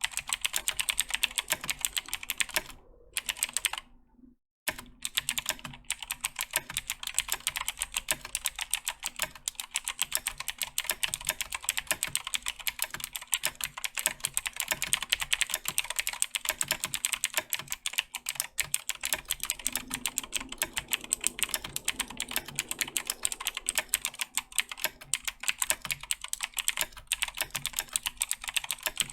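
Rapid continuous typing on a Razer BlackWidow 2014 Tournament Edition mechanical keyboard with clicky Razer Green switches: a dense stream of sharp key clicks. The typing breaks off briefly about four seconds in.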